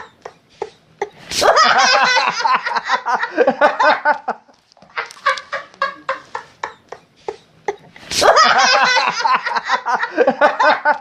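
Crazed, hysterical human laughter as a looped sound effect. Short choppy cackles break into a long, loud fit of laughing about a second in. The same pattern repeats from about four and a half seconds.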